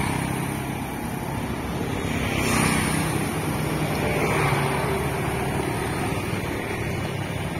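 Small motorcycles and scooters riding past at low speed, their engines running, over general street noise.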